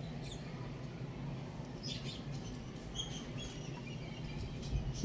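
Short, high bird chirps scattered through, with a couple of sharp clicks from a chicken's beak pecking greens in a steel bowl, over a steady low hum.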